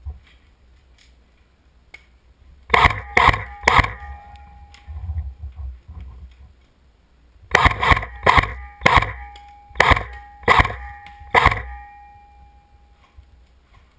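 Airsoft rifle fired in single shots: three sharp shots in quick succession, a pause of a few seconds, then seven more at an uneven pace, some with a brief ringing tail.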